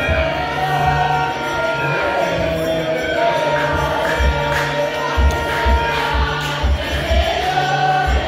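A crowd of Ethiopian Orthodox worshippers singing and chanting together, with a steady low beat underneath.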